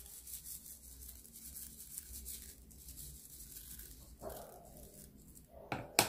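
Quiet kitchen background with a dog in the house giving one brief vocal sound, falling in pitch, about four seconds in. A couple of sharp knocks follow just before the end.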